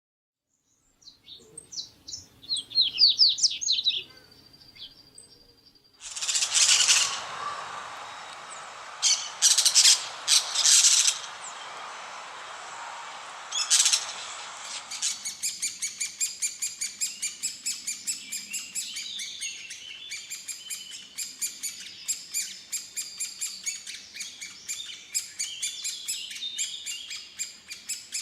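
Songbirds singing: a quick series of high chirps, then harsh, raspy loud calls for several seconds, then a long run of rapidly repeated high notes at about three a second.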